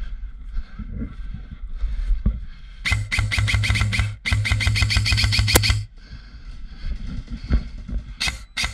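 Airsoft electric rifle firing two long full-auto bursts, each about a second and a half, with a brief break between. Each burst is a rapid, even rattle of shots over the whir of the gearbox motor. Quieter knocks and rustling come before and after.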